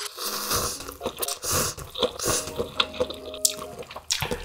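A person slurping soupy squid jjamppong cup ramen noodles in several short, wet pulls, then chewing them.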